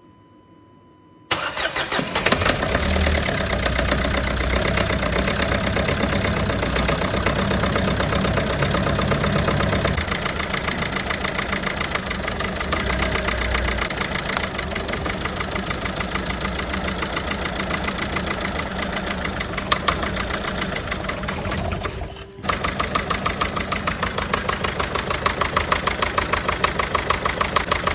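Renault 1.5 dCi four-cylinder diesel engine running with an abnormal rhythmic knock, which the owner traced to failed injector nozzles on cylinders 3 and 4. The engine sound comes in abruptly about a second in and drops out for a moment about 22 seconds in.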